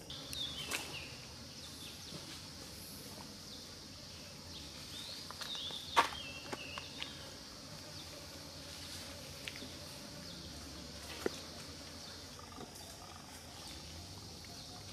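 Outdoor ambience with a steady high insect hum. Short high falling chirps come just after the start and again about five seconds in, and a few sharp clicks fall among them, the loudest about six seconds in.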